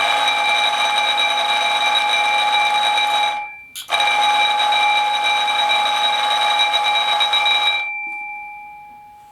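Electric fire alarm bell ringing loudly for about three seconds, breaking off for half a second, then ringing about four seconds more. After that it stops and the bell's tone rings out, fading slowly.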